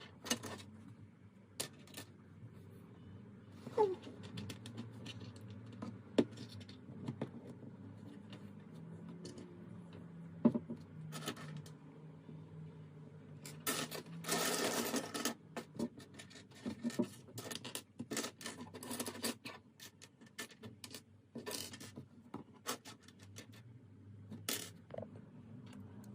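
Plastic LEGO Technic pieces being handled: scattered sharp clicks and taps, with a longer rustling scrape a little past halfway through, over a faint low hum.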